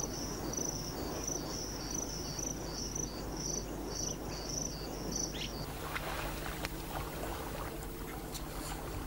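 Insect chirping in a steady pulsing rhythm, about two chirps a second, over a low background rumble. About five and a half seconds in it cuts off abruptly and gives way to a hiss of running water with scattered splashes.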